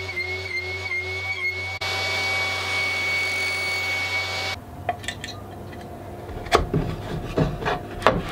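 Table saw with a 24-tooth square-top rip blade running with a steady whine while cutting finger-joint slots in lacewood; the sound grows louder about two seconds in and stops abruptly about four and a half seconds in. After that, light knocks and wood rubbing as the cut boards are handled.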